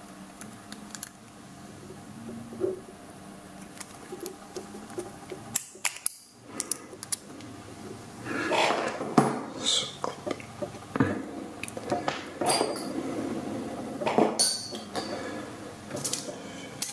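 Small metal clicks and clinks as a picked padlock is taken apart: circlip pliers working the retaining clip off the back of the plug, then tools and lock parts knocking and clinking against each other, louder and busier from about eight seconds in.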